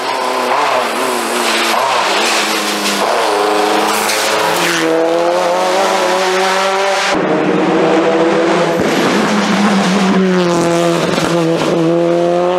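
Race car engine at full throttle climbing through a bend, its revs rising with a gear change about five seconds in. After an abrupt change about seven seconds in, a second race car's engine revs hard as it pulls away.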